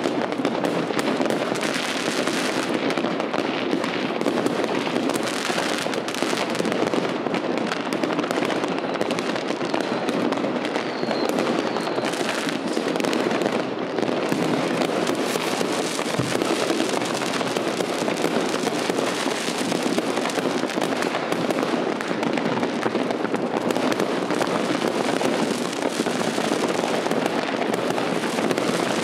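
Fireworks going off in a dense, unbroken barrage: many bangs and crackles overlapping, with no pauses between them.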